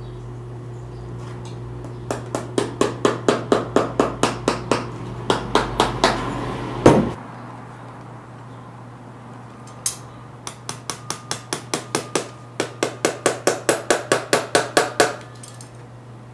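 Lasting pliers' hammer face tapping tacks through a sneaker upper into the shoe last during hand lasting: two runs of quick, even metal-on-tack taps, about four a second, with a single louder knock about seven seconds in.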